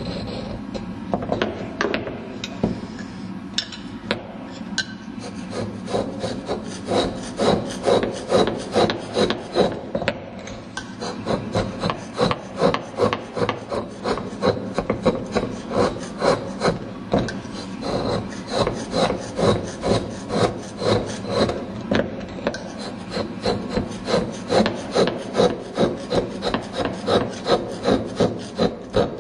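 Steel chisel scraping and chipping slate as an Ogatsu inkstone's well is carved out, in short rasping strokes. Irregular at first, then about two strokes a second from roughly six seconds in.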